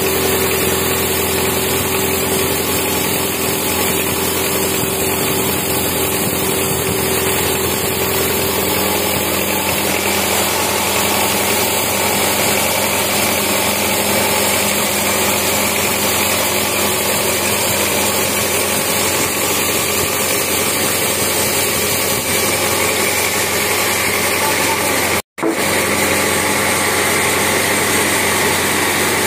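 Horizontal band sawmill running, its band blade sawing lengthwise through a teak log: steady, loud machine noise that cuts out for an instant about 25 seconds in.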